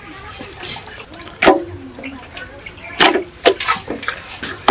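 Hands working wet raw chicken pieces on a metal platter: quiet wet handling with a few sharp knocks, one about a second and a half in and several close together around three seconds in.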